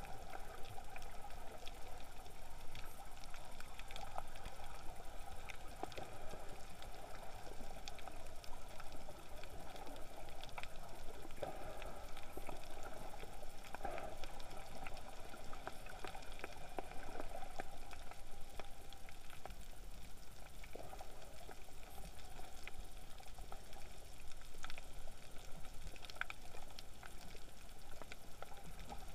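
Underwater reef ambience picked up by an action camera inside its waterproof housing: a steady, muffled watery rush with many short, sharp clicks scattered throughout.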